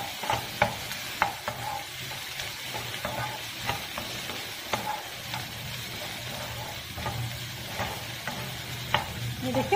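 Wooden spatula stirring chopped onion in a nonstick frying pan, scraping and tapping the pan at an irregular pace over a soft sizzle. The onion is frying in ghee and being lightly sautéed, not browned.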